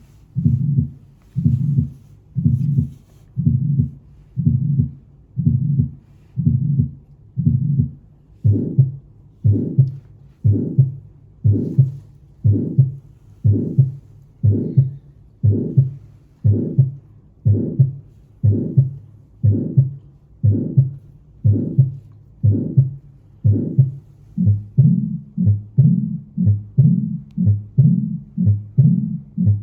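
Heart sounds as heard on auscultation: a regular heartbeat of about 70 to 80 beats a minute. About eight seconds in, the beats turn sharper and brighter, and near the end each beat comes doubled, with sounds of the kind listened for as murmurs or split heart sounds.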